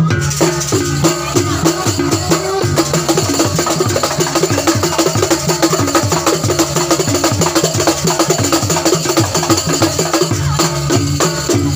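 Jaranan music: a fast, steady percussion rhythm of drums and pitched gong-chimes with a rattling, jingling layer on top, accompanying a trance dance.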